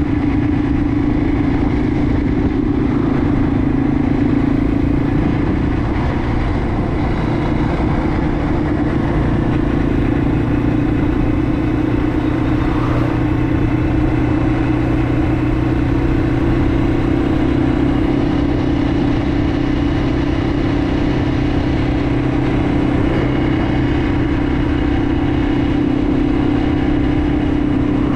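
Yamaha TW200's single-cylinder four-stroke engine running as the motorcycle is ridden, holding a fairly steady pitch that eases slightly mid-way and climbs back near the end.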